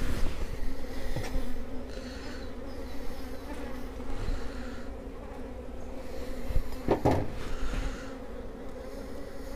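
Honeybees buzzing in a steady hum over an open hive, with occasional knocks and scrapes as hive frames are pried and handled with a hive tool.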